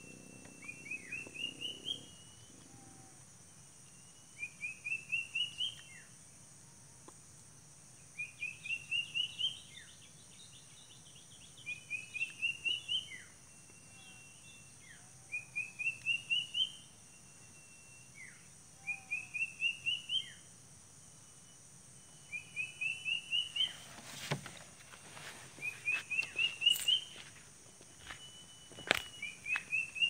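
An uncuing bird, a small Cacomantis cuckoo, singing the same short whistled phrase over and over, about every three and a half seconds: a brief level note, then five or six quick notes climbing in pitch. From about two-thirds of the way in, rustling and knocks of handling or footsteps join it.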